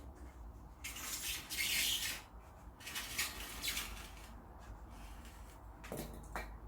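Rustling and rubbing of material being handled, in two scratchy bursts over the first four seconds, followed by a couple of light clicks near the end.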